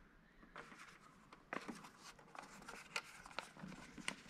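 Faint handling noise: a few light clicks and rubbing as a plastic LED tail light and its wiring are fitted against a school bus's sheet-metal rear panel.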